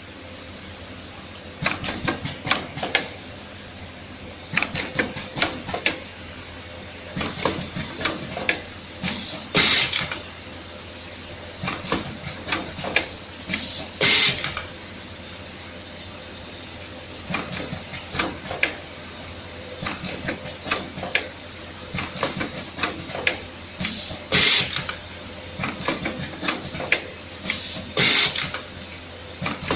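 Automatic USB Type-C cable soldering machine running: a steady hum under repeated clusters of sharp mechanical clicking and clattering, with a short hiss every few seconds.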